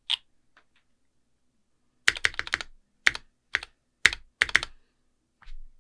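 Graystudio Think6.5 v2 custom mechanical keyboard, with lubed and filmed Alpaca v2 linear switches on an FR4 plate and GMK keycaps, being typed on. A click comes right at the start, then a quick flurry of keystrokes about two seconds in, then a few single presses, with a softer one near the end.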